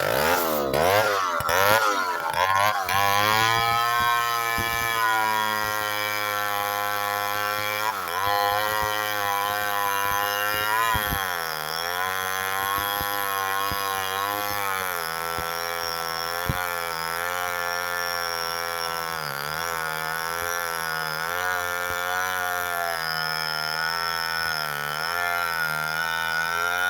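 Chainsaw running hard and cutting, its engine pitch wavering and dipping a few times as the chain bogs under load and then recovering.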